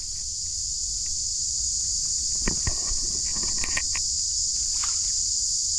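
A steady, high-pitched insect chorus, with a few light knocks and rustles about halfway through.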